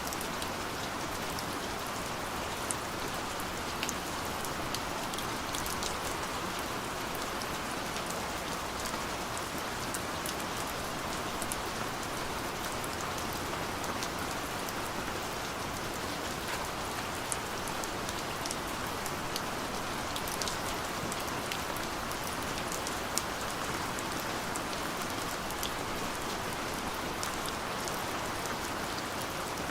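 Steady light rain falling, a continuous patter with scattered sharper drop ticks.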